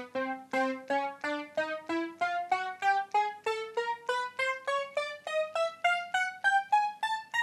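Roland Alpha Juno 2 analogue synthesizer playing single notes one after another, rising step by step up the keyboard at about three notes a second, each a short plucky decaying tone. It is a key-by-key test after a bug-corroded key-contact trace was repaired, and every note sounds.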